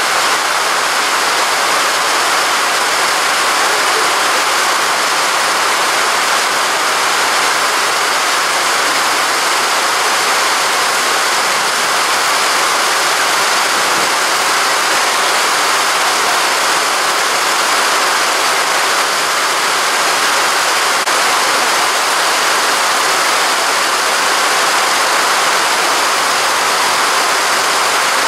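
Steady, loud hissing noise that holds unchanged throughout, with no distinct events in it.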